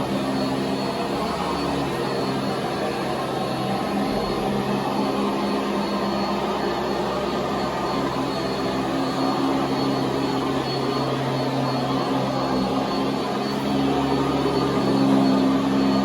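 Sanitaire Tradition SC679K upright vacuum cleaner running steadily on carpet: a constant motor hum over the rush of air, swelling slightly near the end.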